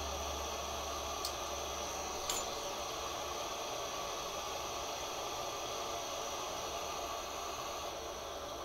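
Glassworking bench torch flame burning with a steady hiss. Two faint clicks come in the first few seconds.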